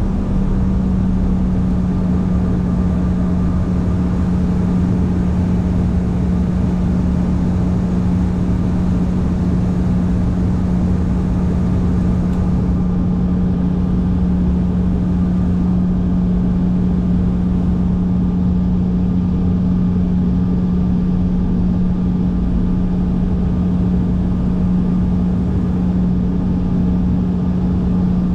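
Cabin drone of a CRJ-700's rear-mounted GE CF34 turbofans at taxi power: a steady low hum holding one pitch over an even rush of engine and airflow noise.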